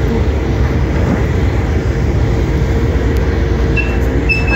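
Passenger motor ship's diesel engine running with a steady low rumble as the ship moves slowly, with a faint steady hum. Two brief high chirps near the end.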